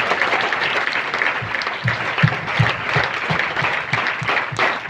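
A congregation clapping loudly and continuously. From about a second and a half in, low thuds join in, two or three a second.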